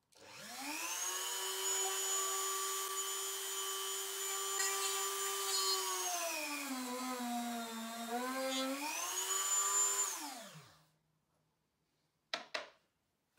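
Dremel rotary tool in a drill-press stand spins up to a steady high whine; about six seconds in its pitch sags for a couple of seconds as the small drill bit bores through a wood block, then recovers. It is switched off and winds down, followed by two quick light knocks.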